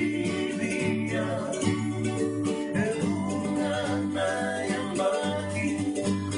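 Acoustic guitar and ukulele strummed together in a Fijian sigidrigi string-band song, with men's voices singing along.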